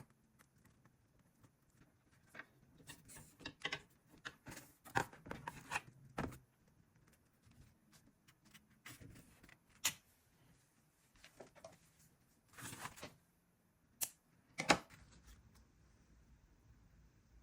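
Irregular small taps, clicks and short rustles of craft materials being handled on a work surface, with a few sharper knocks about ten seconds in and near the end.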